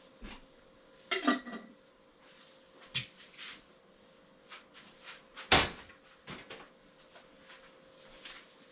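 Scattered knocks and clatters of kitchen items being handled, among them a pressure canner lid, with the loudest knock about five and a half seconds in. A faint steady hum runs underneath.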